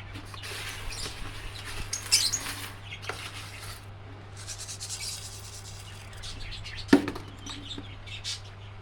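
Small pet parrots (budgies or lovebirds) chirping and chattering, with scratchy rustling. A sharp knock comes about seven seconds in, over a steady low hum.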